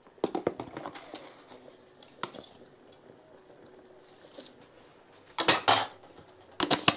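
Metal spoon clinking and scraping against a stainless steel pan as spice mix is spooned into a stew: a quick run of light clinks in the first second, then two louder bursts of clattering, one about five and a half seconds in and one near the end.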